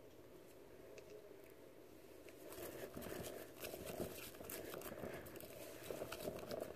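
Silicone spatula stirring foamy glue and hand soap in a glass bowl: faint wet squishing with many small crackles and clicks, starting a couple of seconds in.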